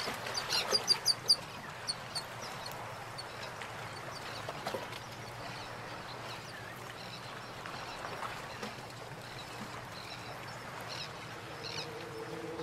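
Bird chirping: a quick run of sharp, high chirps in the first second and a half, then scattered fainter chirps, with more near the end.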